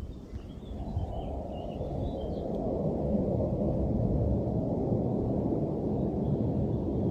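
A low, steady rumbling drone that swells gradually louder, with faint bird chirps over it in the first couple of seconds.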